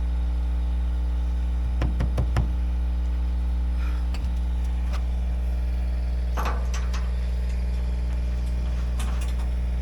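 Tractor engine idling steadily, with a few short metallic knocks about two seconds in, again past six seconds and near the end.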